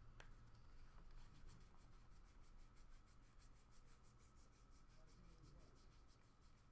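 Near silence with faint handling of trading cards: soft rubbing and a quick run of light ticks, about five a second, as cards are flipped through a stack.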